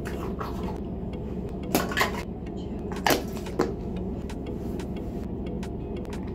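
A handful of sharp clicks and taps from small plastic toiletry and makeup items being handled, the loudest about three seconds in, over a steady low background.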